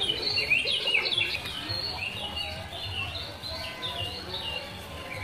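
Many birds chirping at once, a continuous chatter of short, high calls overlapping one another, a little louder in the first second or so.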